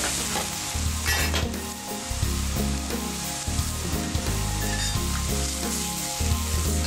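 Chicken lo mein noodles sizzling in a hot wok as they are stir-fried and tossed with two metal spatulas: a steady hiss of frying.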